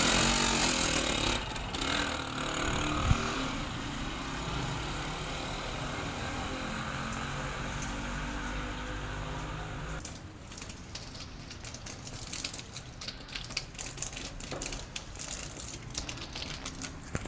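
Motorcycle engine running, loud for the first second or so, then settling to a steady, fading run that cuts off about ten seconds in. After it stops come scattered light clicks and rustles.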